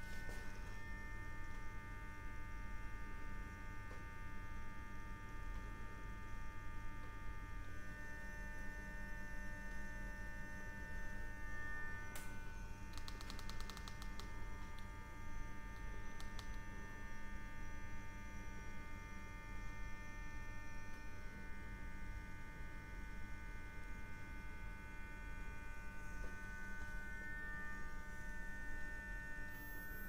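Electric furnace running with a steady mains hum and a few thin electrical whine tones that shift in pitch about eight and twelve seconds in. A brief run of faint clicks comes about halfway through.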